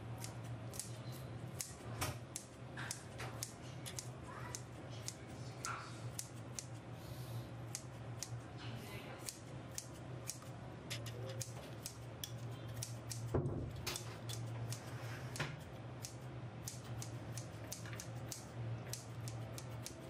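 Kitchen scissors snipping boiled chicken into shreds: repeated sharp snips at an irregular two or three a second, one louder about two-thirds of the way through, over a steady low hum.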